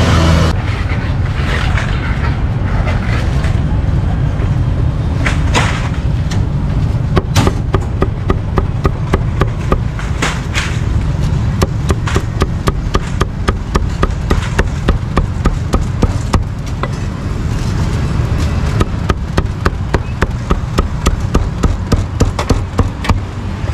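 Cleaver chopping roast meat on a block, sharp regular strokes about two to three a second starting about seven seconds in, over a steady traffic rumble.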